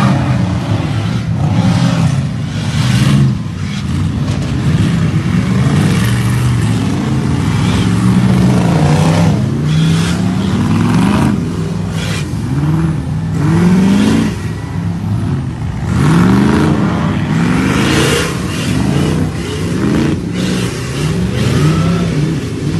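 Several modified off-road 4x4 trucks revving hard as they drive through deep mud. Their engine notes rise and fall over and over and overlap one another.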